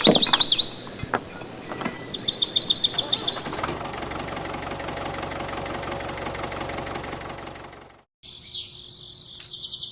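A bird sings two quick trills of fast, evenly repeated high chirps. From about the middle a small engine runs steadily, then it cuts off abruptly.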